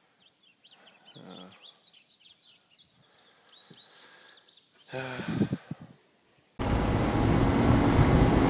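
Small birds chirping over a steady high insect drone, with two brief low hums of a voice. About six and a half seconds in the sound cuts abruptly to a loud, steady rushing noise with a low hum underneath.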